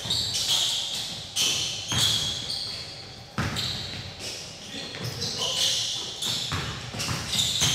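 Basketball game action in a large gym: the ball bouncing on the hardwood, with sharp thuds about one and a half, two and three and a half seconds in, short high sneaker squeaks, and scattered players' voices.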